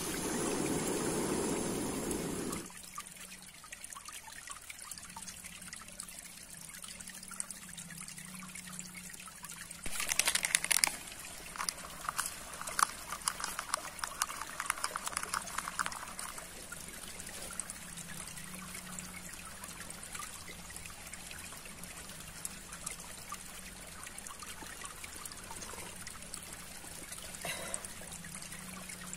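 Small stream trickling steadily. A gas stove burner runs under a steel pot for the first few seconds. About ten seconds in there is a sudden rush, then several seconds of quick clinks and splashes of liquid in the steel pot.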